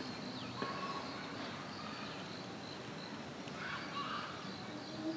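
Outdoor background noise with faint, indistinct voices and a few short, high falling bird chirps.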